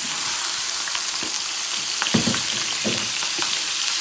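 Cubes of raw pork frying in hot lard in an electric skillet: a loud, steady sizzle, with a few knocks of a spatula stirring the meat about two and three seconds in. The meat is being browned to seal it.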